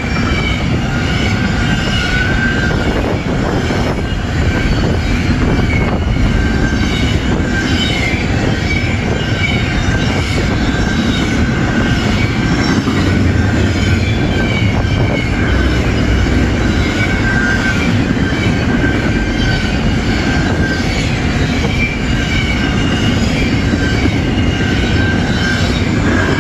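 Double-stack intermodal freight cars rolling past at speed: a steady, loud rumble of wheels on rail, with high-pitched wheel squeal coming and going.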